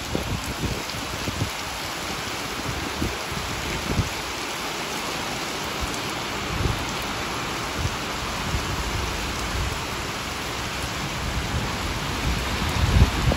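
Steady rain falling on wet interlocking brick paving, a continuous even hiss. Irregular low rumbles come and go underneath and grow heavier near the end.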